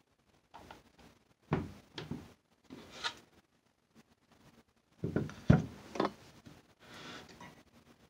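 Knocks and thumps of a soap loaf being handled and set down on a wooden wire soap cutter, a cluster about five seconds in with the loudest near the middle of it, followed by a soft scrape as the loaf is slid into place.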